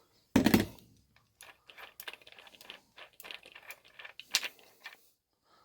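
Small metal retaining clips being fitted onto a grinder chain disc. A clunk about half a second in, then a run of light, irregular metallic clicks and taps, with a sharper click near the end.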